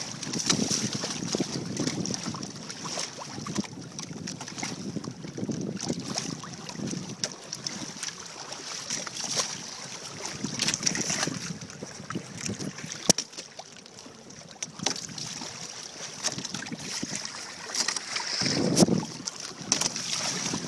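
Wind buffeting the microphone over water splashing and hissing along the hulls of a Hobie Adventure Island sailing kayak under way on choppy sea. A louder gust comes near the end.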